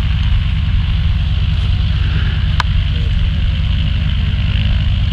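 Antonov An-2's nine-cylinder radial engine running steadily on the ground after start-up, its propeller turning, with a rapid, even low throb.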